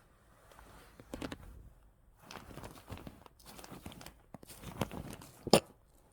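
A pet sneezing several times in short noisy bursts, the last and loudest a sharp sneeze about five and a half seconds in.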